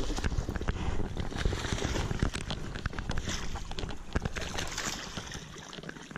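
A hooked bass thrashing and splashing at the water's surface as it is played in beside a jon boat and netted, in irregular sloshing splashes that die down near the end.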